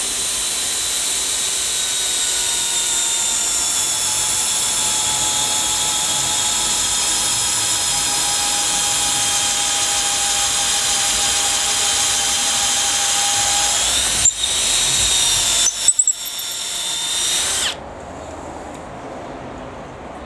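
Makita cordless drill boring with a long auger bit: a steady, loud motor whine that slowly sinks in pitch under load, rises briefly about fourteen seconds in, then stutters a few times and stops near the end.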